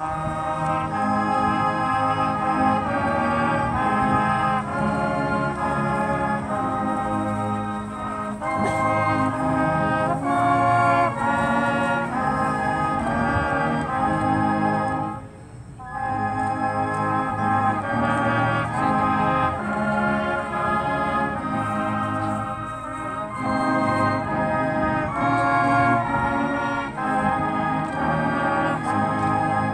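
High school marching band playing a slow tune in sustained brass chords, the notes changing about once a second. The music breaks off briefly about halfway through and again at the end, between phrases.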